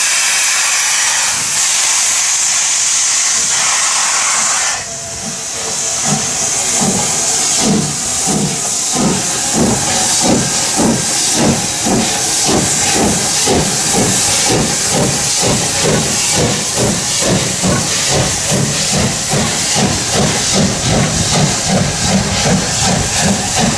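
Steam locomotive No. 58 hissing steadily, steam venting from its open cylinder cocks. After a break about five seconds in, the locomotive pulls away with exhaust chuffs that quicken to about three a second.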